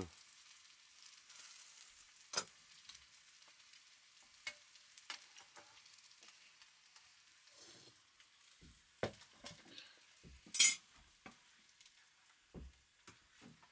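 Chow mein noodles frying faintly in a wok over a wood fire, stirred with chopsticks that click now and then against the pan. About ten seconds in comes a loud metal clank as the wok is taken off the iron stand.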